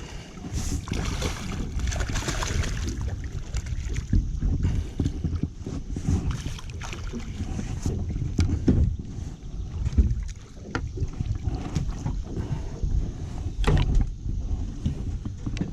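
Wind rumbling on the microphone aboard a small fishing boat, with scattered knocks and clatter of handling in the boat while a channel catfish is brought aboard.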